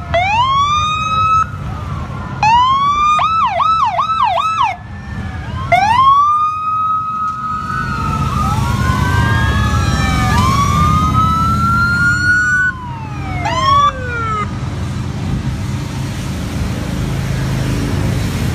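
Police sirens on passing motorcycles: short rising whoops, then a fast yelp, then several sirens wailing over one another and winding down in falling glides about two-thirds of the way in. Under them runs a steady low rumble of motorcycle engines and traffic.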